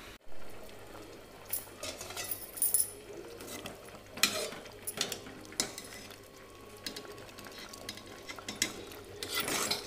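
Steel ladle stirring thick curry in an aluminium pot, with irregular clinks and scrapes of metal on metal against the pot's sides; the loudest knock comes about four seconds in.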